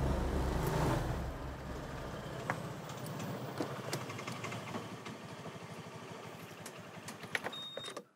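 Motor scooter engine running, fading away over the first few seconds, followed by a few faint scattered clicks.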